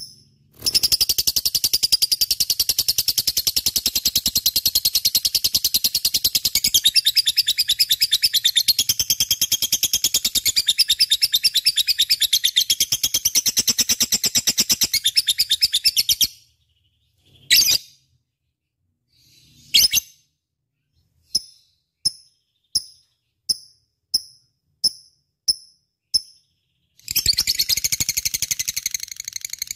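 Lovebird singing: long spells of rapid, high-pitched chattering, broken in the middle by a pause with two single calls and then a string of short chirps about two a second, before the fast chatter starts again near the end.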